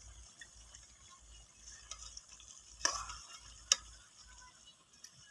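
Faint spoon and pot sounds from a pot of chicken curry being stirred and served, with two sharper clinks about three seconds in.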